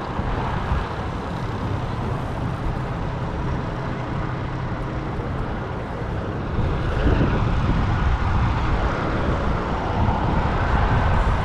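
Steady motor vehicle engine and road noise: a low hum under a broad rumble that grows louder about seven seconds in.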